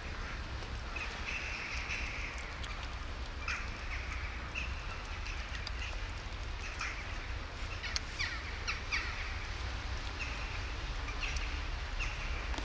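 Outdoor ambience: faint bird chirps come and go every few seconds over a steady low rumble, with a few soft clicks in between.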